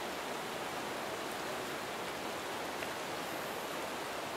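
Stream water running steadily over shallow riffles, an even rushing.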